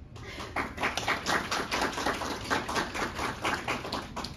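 A small audience applauding: many hands clapping irregularly, starting about half a second in and thinning out near the end.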